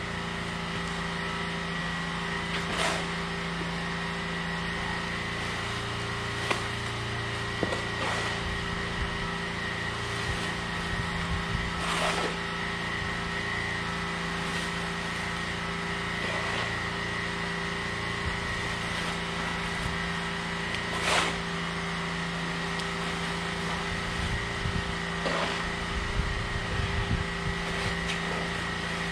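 A fuel-driven pressure washer's engine running steadily in the background, while a shovel scrapes wet silt off block paving and tips it into a bag, with a sharp scrape every few seconds.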